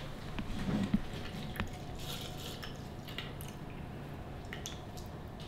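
Liquid squirting and dripping from a syringe into a small plastic cup as the plunger is pushed to expel the separated tumescent anaesthetic fluid, with small sharp ticks of plastic being handled, the loudest about a second in.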